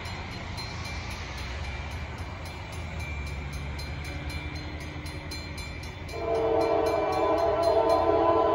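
Low, steady rumble of an approaching freight train, still out of sight. About six seconds in, the locomotive's air horn starts sounding a loud, steady multi-note chord.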